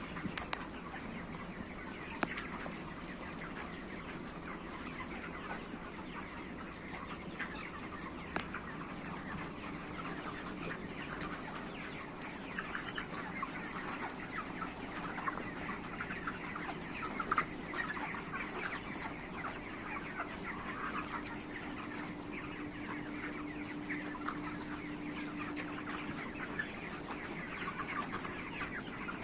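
A flock of chickens clucking and chattering without a break, many short calls overlapping.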